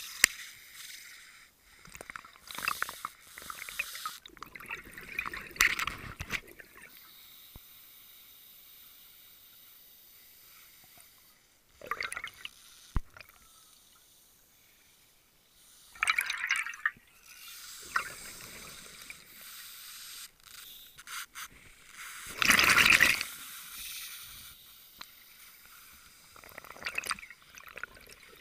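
Scuba regulator exhaust bubbles heard underwater: a bubbling burst every few seconds as the diver breathes out, the loudest about two-thirds of the way through, with a faint steady hiss between.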